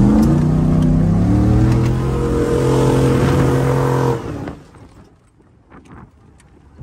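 Pickup truck engine revving hard at full throttle as it climbs a steep sand dune; the revs rise, hold high, then fall away abruptly about four seconds in.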